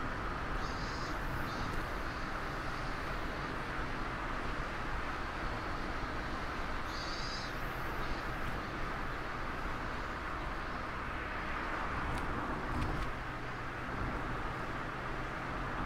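Steady driving sound from inside a Mazda ND Roadster, an open-top car: wind and tyre rush over the low, even hum of its four-cylinder engine at cruise. Two brief high chirps cut in, about a second in and again about seven seconds in.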